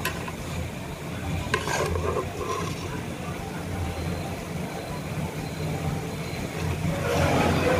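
Rice and vegetables frying in a pressure cooker: a steady low sizzle while a metal ladle stirs and scrapes through them.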